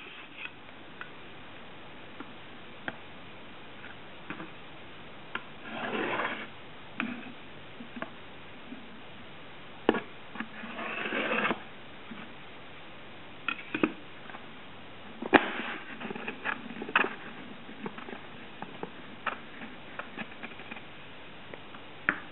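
Hands working cardboard and craft materials: scattered light clicks and knocks, with two longer scraping or rubbing strokes, the second rising louder over about a second.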